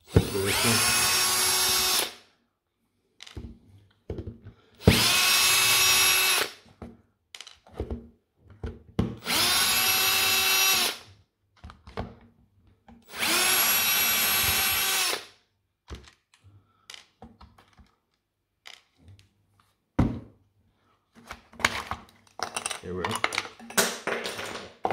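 Cordless electric screwdriver running in four bursts of about two seconds, each spinning up to a steady whine as it backs out a screw from a plastic battery-pack case. Between bursts and near the end come short plastic clicks and rattles as the case is pulled apart.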